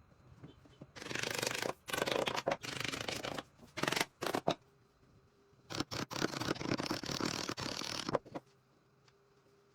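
Quick, rough scraping strokes worked by hand against wood, in two runs of about three seconds each with a short pause between them.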